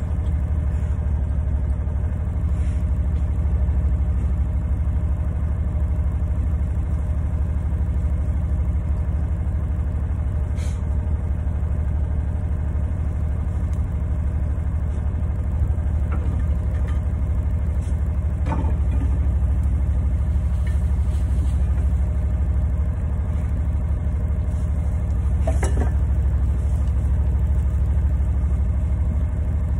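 A John Deere Gator utility vehicle's engine idling steadily while stopped, with a few faint brief clicks over it.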